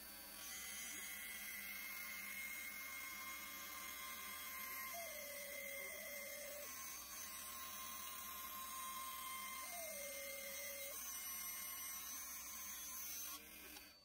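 Small Axminster bandsaw running steadily while its blade rips a long taper along a hardwood piece fed on a taper jig. A tone rises and holds briefly twice, about five and ten seconds in, and the sound drops away suddenly just before the end.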